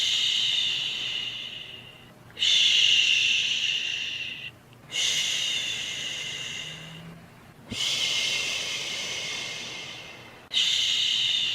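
A person shushing, a long soothing "shhh" repeated about every two and a half seconds. Each shush starts abruptly and fades away: five in all.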